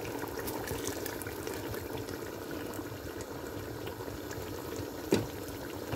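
Water being poured into a steel pot of simmering chicken and potato curry: a steady splashing pour into the bubbling liquid. A short knock about five seconds in.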